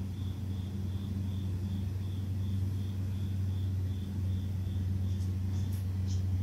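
A steady low mechanical hum, with a cricket chirping faintly and evenly about three times a second. A few faint high ticks come near the end.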